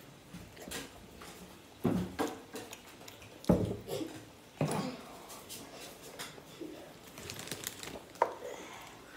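Eating noises at a table: noodles slurped at first, then a handful of sudden thumps and clatters, the loudest about three and a half seconds in.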